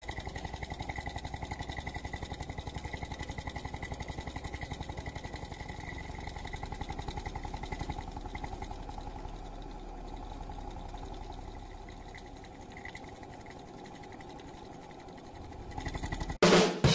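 Homemade tin-can hot air engine running, its central piston rod vibrating fast and giving a steady rapid buzzing rattle with a high tone over it. Near the end a loud sudden burst cuts in.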